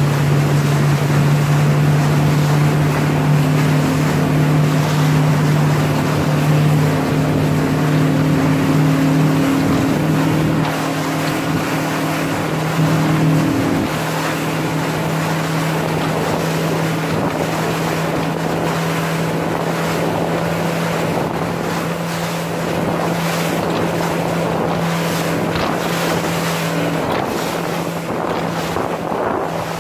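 Motorboat engine running with a steady drone under wind on the microphone and water noise; the engine note drops a little about halfway through.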